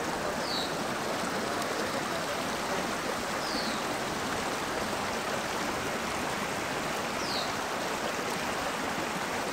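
Mountain stream running steadily over stones, a continuous rushing of water.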